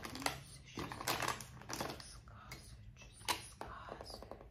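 Irregular light taps and clicks close to the microphone, a quick uneven run of small sharp sounds with the strongest one just over three seconds in.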